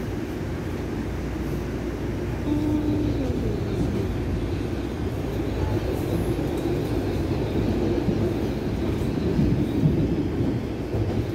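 Steady low rumble of a moving vehicle heard from inside, with faint voices in the background.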